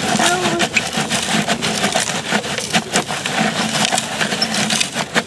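Steel toy construction truck working through dirt and gravel, with continuous crunching, scraping and rattling of grit and pebbles as the load is moved and dumped.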